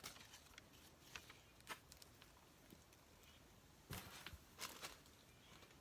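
Near silence with a few faint rustles and taps of paper and packaging being handled, the most noticeable cluster about four seconds in.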